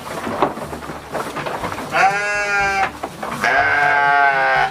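Sheep bleating: two long bleats, the first about two seconds in and the second near the end, with light rustling and knocks before them.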